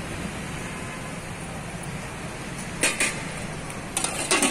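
Steady road-traffic noise from the roadside, with sharp metallic clinks about three seconds in and again near the end: a steel serving ladle knocking against a steel pot and lid while curry is served.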